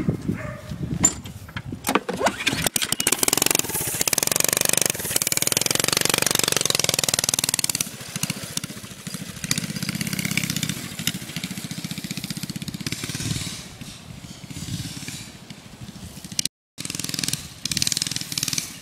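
Small air-cooled go-kart engine starting and running as the kart drives off across the yard. It is loudest in the first several seconds, then grows quieter as the kart moves away, and swells again near the end.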